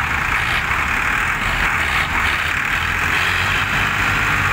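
Several diesel farm tractor engines running hard together under heavy load, pulling a loaded trailer. The sound is steady and continuous, with no revving up or down.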